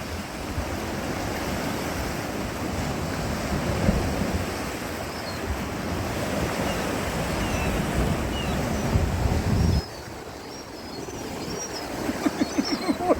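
Sea surf with wind buffeting the microphone, a heavy rumble that drops off suddenly about ten seconds in.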